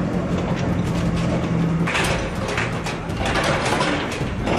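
Demolition machinery at work: a steady engine hum that stops about two seconds in, followed by rough scraping and clattering bursts of breaking masonry and debris.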